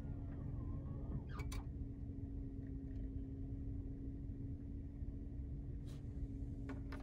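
Steady low rumble and hum inside a car cabin, with a few sharp mechanical clicks about a second and a half in and again near the end, from a factory Toyota CD player loading a disc and cueing track 1.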